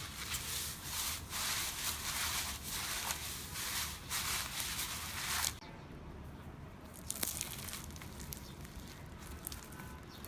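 Slime being squeezed and pressed by hand, crackling and crinkling in a run of bursts that stops abruptly about five and a half seconds in. Quieter handling follows, with one sharp click about seven seconds in.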